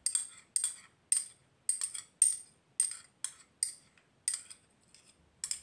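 A metal spoon scraping and clinking against the inside of a small glass bowl in quick, even strokes, about two a second, working the last of a thick oil mixture out.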